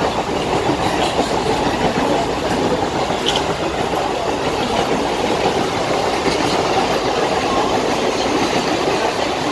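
Bombardier electric multiple-unit local train passing close by at speed without stopping, its wheels running over the track with a steady, loud rumble.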